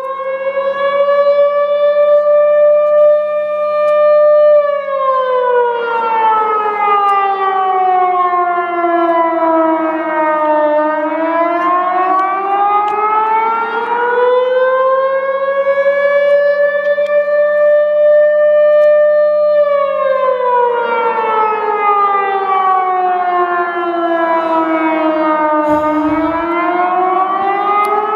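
Outdoor warning siren wailing. Its pitch holds high for a few seconds, slides slowly down over about six seconds, then climbs back up, going through this rise and fall twice.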